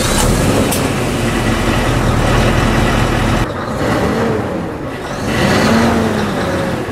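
Scania S730's 16-litre V8 diesel running just after start-up, with the throttle blipped. It runs hard for the first few seconds, drops back, then rises and falls once more near the end.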